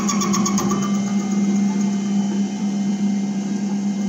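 Metal Master MML 2870 MV benchtop lathe running with a steady hum while turning a stainless steel tube. A rapidly pulsing, higher ringing from the cut fades out about a second in, leaving the motor and spindle hum.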